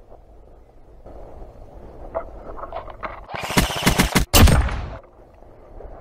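Airsoft electric rifle firing a rapid burst of shots, starting a little past halfway and lasting about a second and a half before stopping abruptly.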